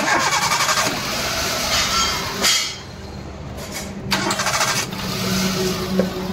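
An old Maruti Suzuki Wagon R's 16-valve petrol engine being cranked on the starter and catching, in loud bursts near the start, at about two seconds and at about four seconds, with a steadier running note after. It now starts, the loose contact in the wiring coupler that kept it from starting having been fixed.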